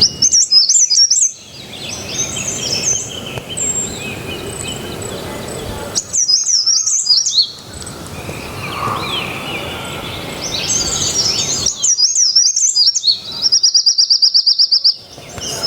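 Songbirds chirping and singing in bursts of quick, high, sliding phrases, ending in a fast trill of repeated notes, over the steady rush of a small water cascade.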